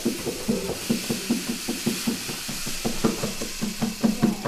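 A rainstick tipped so its beads pour through the tube with a steady hiss, while a hand drum is tapped in quick, even strokes at the same time.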